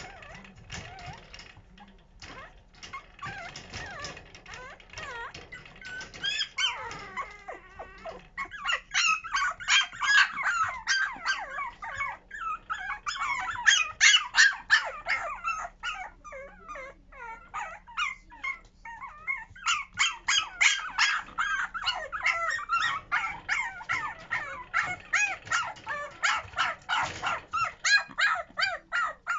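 A 50-day-old Pomeranian puppy whining and yipping in short, high cries, starting faintly and building a few seconds in into a rapid, continuous run. It is the puppy demanding to be let out of its pen.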